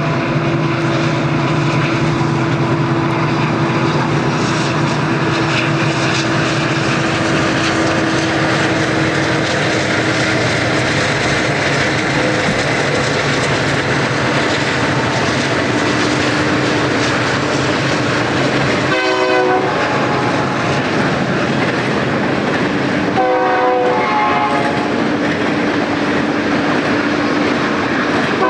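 Santa Fe freight train rolling past: steady wheel-on-rail clatter under the drone of its diesel locomotives. A short horn blast sounds about four-fifths of the way through.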